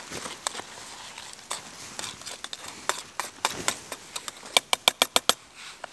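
Small camp pot being handled, with a metal spoon clinking and scraping inside it. Scattered clicks, then a quick run of about seven sharp taps near the end.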